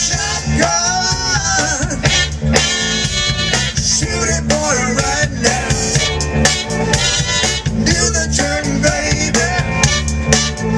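Live blues band playing an instrumental stretch: a tenor saxophone solos with bending, sliding phrases over bass and drums.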